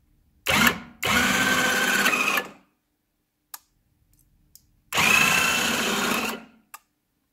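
Electric motors of a GLK motorcycle landing gear running as the switch is worked: two steady motor whines of about a second and a half to two seconds each, with a gap and a single click between them.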